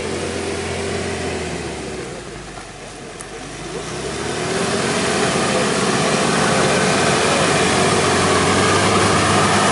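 Ford Ranger Wildtrak pickup's engine running as the truck drives over a muddy track toward the microphone. About four seconds in it revs up, rising in pitch and getting louder, then holds steady and loud.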